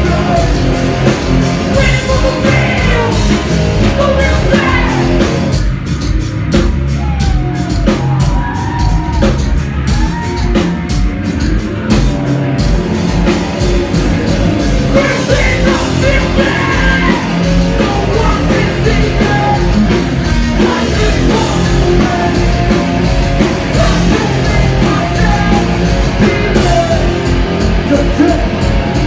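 Hardcore punk band playing live and loud: distorted electric guitars, bass and drums with shouted vocals.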